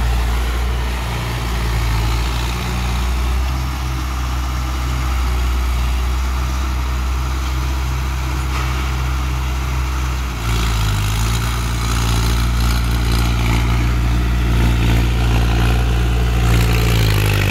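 Mahindra Arjun 555 DI tractor's four-cylinder diesel engine running steadily while it tills with a rotavator. Its note shifts about ten seconds in and grows a little louder near the end as the tractor comes closer.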